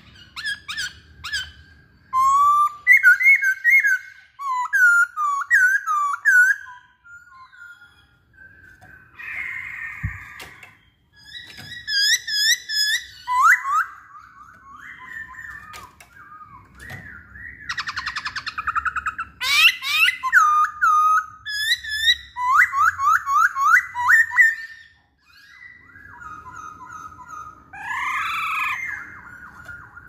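Masked laughingthrush singing a loud, varied song: phrases of rapid repeated whistled notes and rising and falling whistles, broken by short pauses.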